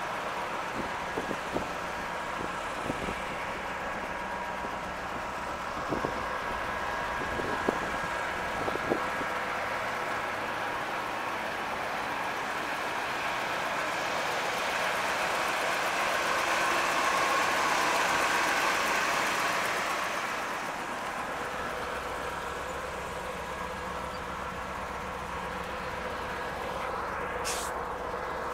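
Steady outdoor background hum with a few faint steady tones. A few light clicks or knocks come in the first ten seconds, and the hum swells a little around the middle.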